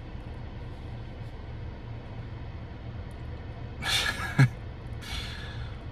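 A man draws a sharp breath in about four seconds in and lets a breath out about a second later, over the steady low hum of a car cabin.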